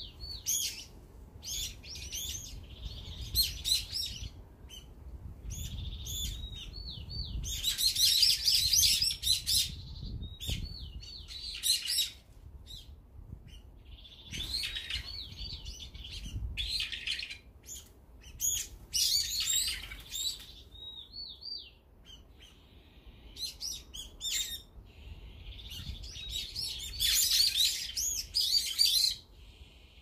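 Several small songbirds chirping and calling. Short hooked notes repeat between three louder bursts of busy chatter, about 8, 19 and 27 seconds in.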